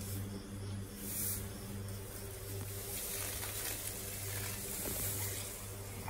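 Straw bedding rustling and hissing as a heavily pregnant mare goes down to lie in it, growing from about two seconds in, over a steady low electrical hum.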